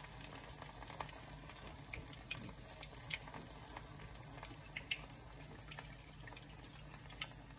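Egg-battered tortilla halves frying in a pan of hot oil: a faint, steady sizzle with scattered small pops and clicks. Near the end, oil drips back into the pan as one piece is lifted out to drain.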